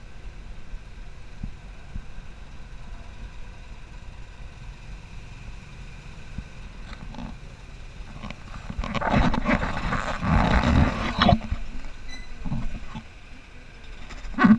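Off-road buggy's engine running steadily as it drives a dirt trail, then from about eight seconds in much louder rattling and knocking from the vehicle as it goes over rough ground, with another loud knock near the end.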